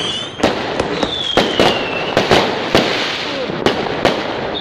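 Fireworks going off: a quick, irregular series of about a dozen sharp bangs over continuous crackling. About a second in, a whistle falls slowly in pitch for about a second.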